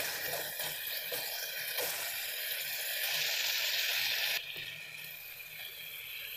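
Chicken and choy sum sizzling in a wok, with the sauce bubbling as a cornstarch slurry thickens it. The sizzle swells about three seconds in, then drops off suddenly about four seconds in.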